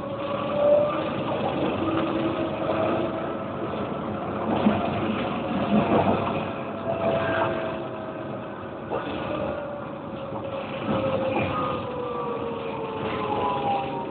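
Tram running between stops, heard from inside the car: a steady rumble with several whining tones that slowly rise and fall in pitch.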